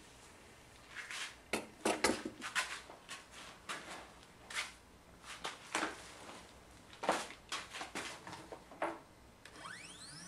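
A scatter of irregular light clicks and knocks, then, near the end, the 3018 CNC's X-axis stepper motor starts a 50 mm move: a whine that rises quickly in pitch as it accelerates and settles into a steady high whine.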